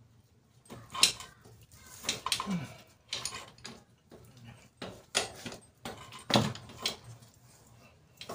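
Motorcycle rear spoked wheel and knobby tyre being lifted and shifted by hand into the swingarm, giving a run of irregular knocks, bumps and rubbing scrapes of rubber and metal, several seconds apart.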